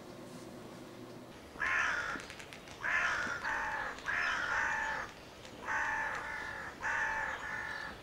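A run of crow caws, about one a second, starting about one and a half seconds in.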